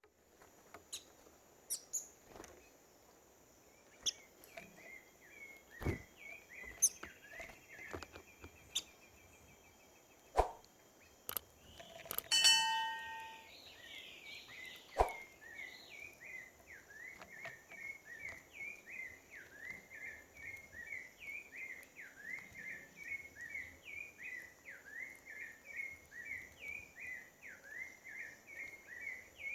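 Forest birds calling: scattered sharp clicks and one loud, ringing call about twelve seconds in, then from about halfway a bird repeating short chirps without a break, two to three a second, over a faint steady high hum.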